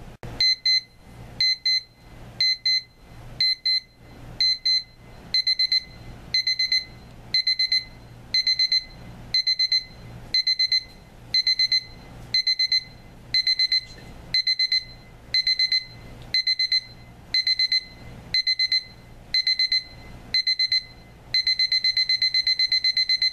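Timelink 88141 digital alarm clock sounding its electronic alarm on the loud setting: high-pitched beeps in short groups about once a second, the groups growing longer. About 21 seconds in it changes to continuous rapid beeping. It is really loud.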